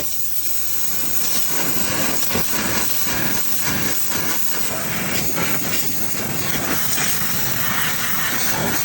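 Water spraying hard from a wash nozzle in a steady, loud hiss that starts abruptly, washing CV-joint grease out of a car's engine compartment.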